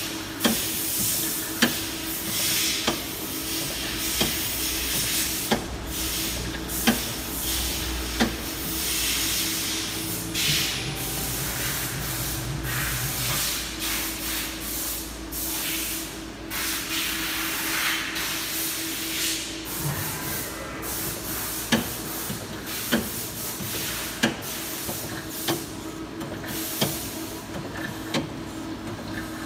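Okuma LB-12 NC lathe running on test with its chuck spinning: a steady machine hum with washes of hissing that come and go, and a sharp click about every 1.3 seconds.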